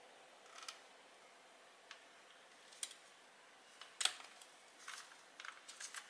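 Small plastic clicks and brief scrapes as a plastic pry tool works at the circuit board inside a Dyson V8's handle housing: a handful of scattered ticks, the sharpest about four seconds in and a quick run of them near the end.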